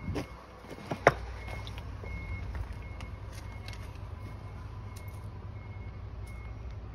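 Work vehicle engine running with a low rumble under a repeated high beeping alarm of the reversing kind. There is one sharp knock about a second in.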